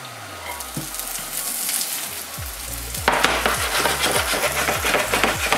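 Butter and olive oil sizzling in a hot frying pan, then a much louder frying sizzle about three seconds in as diced chorizo goes into the hot fat.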